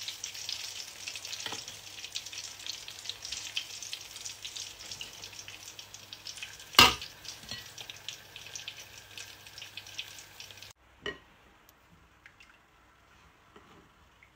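Hot oil sizzling and crackling as it is poured through a wire strainer onto crushed chili flakes and sesame seeds, the infusing of homemade chili oil. About seven seconds in comes a single sharp knock, the loudest sound. About eleven seconds in the sizzling cuts off abruptly, leaving a faint click and quiet stirring.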